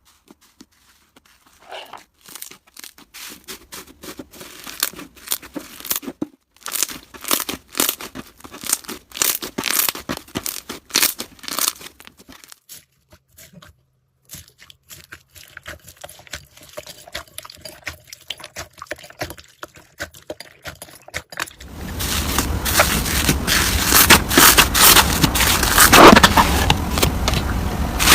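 Slime being squeezed and worked by hand, giving quick trains of crackling, popping clicks with short pauses between handfuls. Near the end it turns into a louder, denser, continuous crunching.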